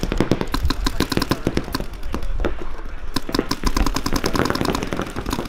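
Several paintball markers firing in fast, overlapping strings of sharp pops, many a second.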